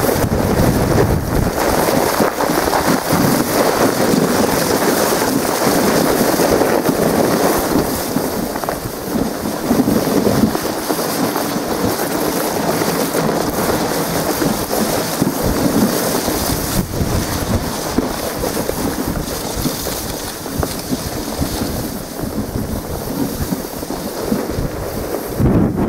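Continuous rushing wind noise buffeting the microphone on a moving dog sled, with no clear single event standing out.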